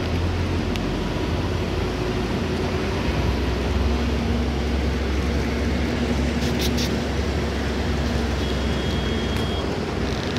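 Steady engine hum and road rumble heard from inside a moving vehicle, with a strong low drone throughout.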